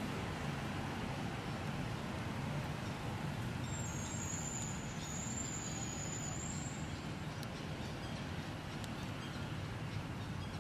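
Steady outdoor background noise, a low rumble with hiss, with a thin high-pitched whine about four seconds in that holds for roughly three seconds.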